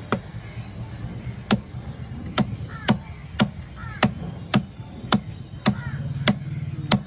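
Large knife chopping a skin-on fish fillet into chunks on a wooden chopping block: a steady run of about eleven sharp chops, mostly half a second to a second apart.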